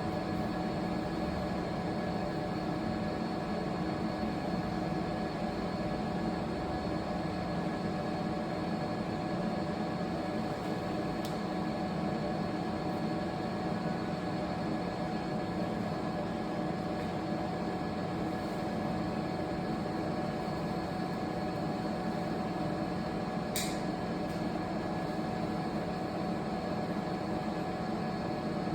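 Steady running hum of a 3D crystal laser engraving machine at work, a blend of fan noise and several constant tones. Two faint ticks stand out, one about eleven seconds in and one about twenty-four seconds in.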